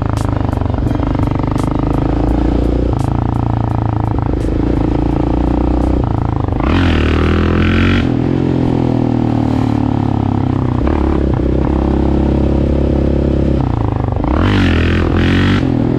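Yamaha Raptor 700R ATV's single-cylinder engine running under way. Its pitch shifts up and down several times with throttle and gear changes.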